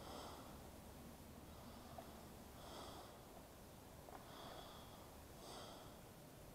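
Near silence, with soft, even breathing close to the microphone: a breath roughly every one and a half seconds, alternating stronger and weaker.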